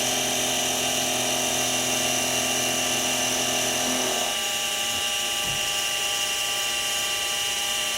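Mini mill's spindle motor running steadily while face-milling a small part, a whine of many steady tones. About four seconds in, a lower hum drops out while the higher whine carries on.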